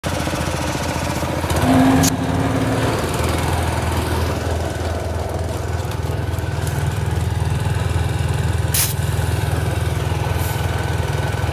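A vehicle engine idling steadily. A short steady tone sounds about two seconds in, and there are two sharp clicks, one about two seconds in and one near nine seconds.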